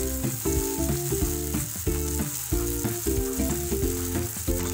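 Mustard and poppy-seed paste sizzling in hot oil in a nonstick kadai as it is stirred with a spatula, under background music.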